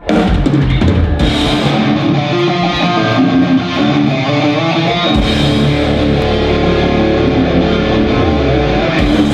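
Live heavy metal band playing the instrumental opening of a song: electric guitars and a drum kit. A deep held low note comes in about five seconds in.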